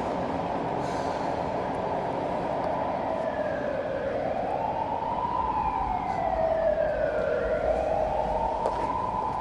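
A siren wailing, its pitch rising and falling slowly, coming in about four seconds in over a steady background rumble.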